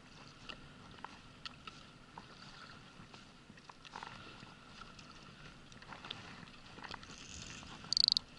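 Faint wash of water and wind around an inflatable boat, with scattered light ticks as a baitcasting reel winds in a tai-rubber jig. Near the end a short, loud, high-pitched burst sounds once, just as a fish is hooked.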